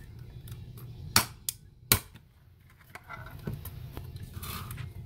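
Handling noise from a shrink-wrapped lithium-ion battery pack being worked loose from a plastic housing: two sharp clicks, about a second and two seconds in, then fainter rubbing, over a low steady hum.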